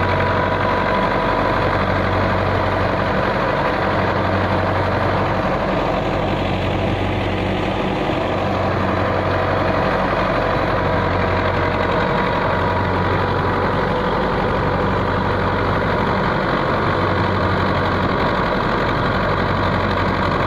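Belarus 510 tractor's diesel engine running steadily under load while driving a wheat thresher, the threshing machine whirring along with it. A low hum swells and fades about every three seconds.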